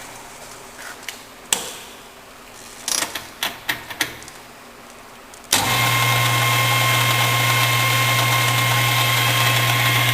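Lathe stopped, with several sharp clicks and clunks as speed levers are shifted. About halfway through, the Emco Maximat Super 11 lathe's motor switches on abruptly and runs at high speed with a steady hum and a thin whine.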